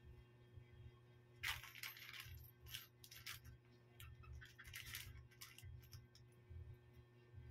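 Faint handling noises: short bursts of rustling and small clicks from something being worked by hand, over a low steady hum.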